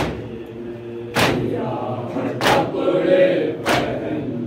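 Group of men beating their chests together in matam, a sharp slap in unison about every second and a quarter, over voices chanting a noha lament.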